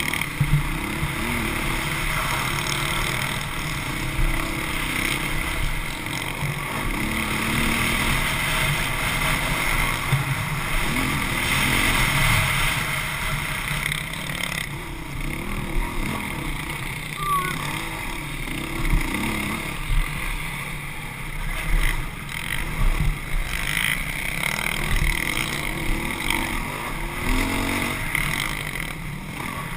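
A dirt bike's engine under race load, its pitch rising and falling again and again with the throttle, heard from the bike under heavy wind noise on the microphone.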